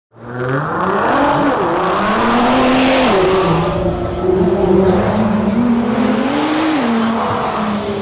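Nissan R35 GT-R's twin-turbo V6 accelerating hard, its pitch climbing through the revs and dropping sharply at upshifts, about 3 and 7 seconds in.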